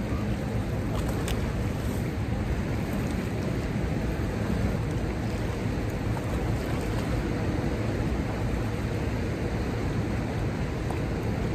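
Steady rush of churning water flowing out below a dam powerhouse, an even noise with no breaks.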